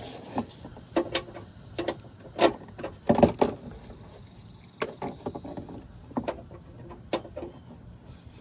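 Irregular clicks and knocks of a socket wrench on a swivel and hands bumping against the plastic fender liner while groping for the antenna mounting nut. The loudest knock comes about three seconds in.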